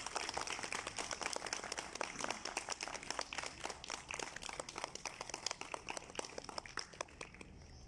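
Applause from a small group: many hands clapping together, gradually thinning out and dying away near the end.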